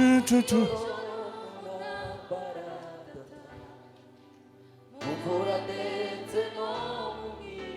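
Voices singing a gospel worship song over steady sustained accompaniment, with a few sharp hits at the very start. The singing fades to a lull in the middle and comes back strongly at about five seconds.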